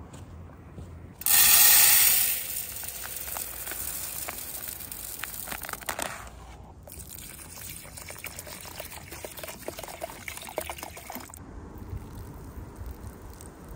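Rice being rinsed in a metal mess tin: a loud rush of pouring water about a second in, then splashing as the rice is washed. Near the end, the cloudy rinse water is poured out of the tin in a thin stream onto the ground, more quietly.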